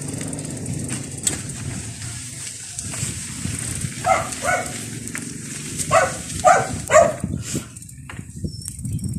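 A dog barking: about five short barks, two together and then three, over a low steady rumble.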